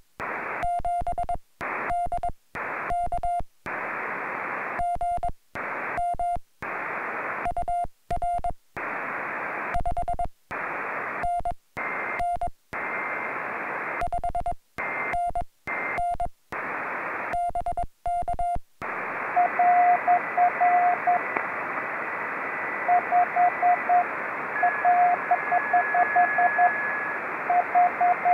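Morse code (CW) on a portable HF ham radio: a single keyed tone sounds over receiver hiss. For the first two-thirds the hiss repeatedly cuts out and back in, with short bursts of tone. From about two-thirds of the way in, the hiss runs steadily while quick strings of Morse dits and dahs are keyed, with faint steady whistles of other signals in the background.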